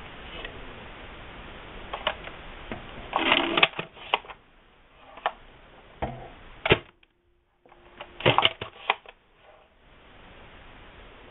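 Hard plastic clicks and clatter from a modified ERTL toy pump-action shotgun being worked by hand. Single sharp clicks come between two quick rattling clusters, one a few seconds in and another near the end.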